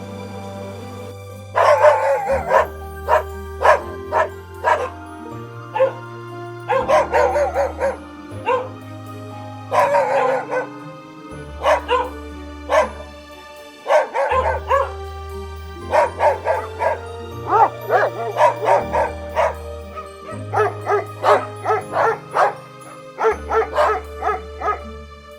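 A dog barking repeatedly in short bursts of several barks, over background music.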